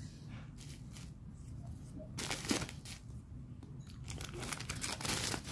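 Plastic packaging crinkling as it is handled: a few faint rustles, a louder crinkle a little after two seconds in, then denser crinkling from about four seconds in.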